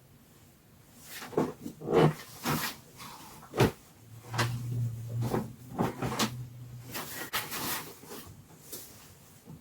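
A series of knocks and clattering bangs over several seconds, the loudest about two seconds and three and a half seconds in, with a low steady hum underneath from about four to seven seconds in.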